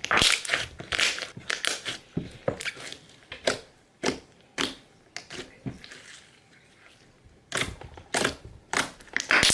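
Thick store-bought slime being squeezed and stretched by hand, giving a rapid, irregular run of wet clicks and pops. The pops are thickest in the first two seconds and again near the end, with a quieter stretch in between.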